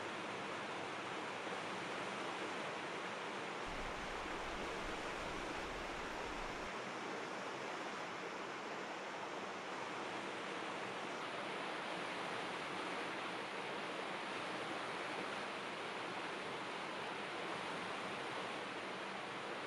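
Slaná river rushing over rapids, a steady, even rush of water. About four seconds in, a low rumble joins it for about three seconds.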